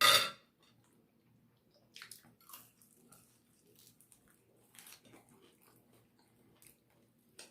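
Close-up eating sounds: a short loud noisy burst right at the start, then faint chewing and wet mouth clicks.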